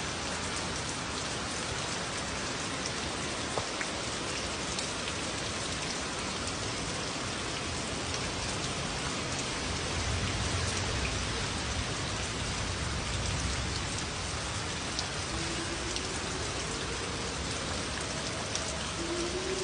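Steady heavy rain pouring down in a severe thunderstorm, with a deeper low rumble for a few seconds about halfway through. A faint tone slowly rises in pitch near the end.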